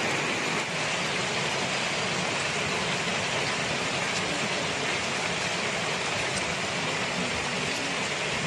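Heavy rain falling, a steady loud hiss with a few faint ticks.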